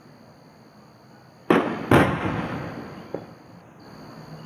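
Aerial fireworks shells bursting: two sharp booms less than half a second apart, each fading in a long rolling echo, then a small pop.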